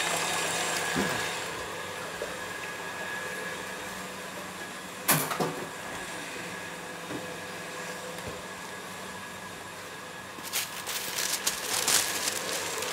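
KitchenAid Heavy Duty stand mixer running steadily, its wire whisk beating egg whites in the steel bowl for a French meringue, with a motor hum and whine. A single sharp knock comes about five seconds in, and the sound grows louder and rougher near the end.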